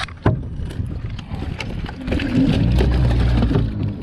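Sharp knocks and handling clatter, then about halfway through a motor's steady low hum comes in, louder than the knocks.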